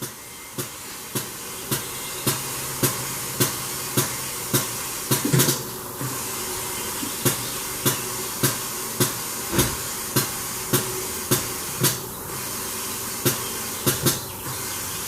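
Compressed air hissing steadily as a tire is inflated on a tire-changer machine, with a sharp regular click about twice a second and a brief louder gush about five seconds in.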